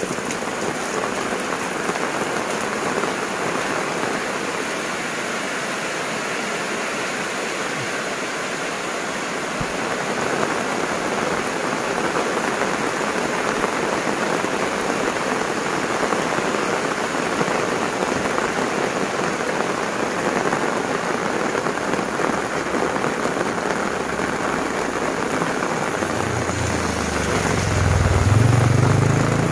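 Heavy rain pouring steadily on leaves, ground and an umbrella overhead. Near the end a motor vehicle's engine rises in pitch and grows loud, then falls away.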